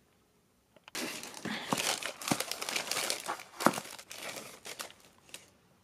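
Tissue packing paper in a cardboard box crinkling and rustling as hands rummage through it, starting about a second in and going on in uneven bursts with a few sharper crackles.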